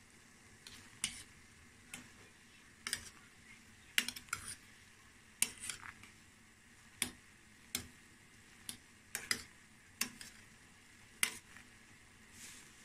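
A long-handled spoon stirring mixed forest mushrooms in a stainless steel pot of boiling salted water, clinking against the pot about once a second at uneven intervals, over a faint steady hiss from the boiling water.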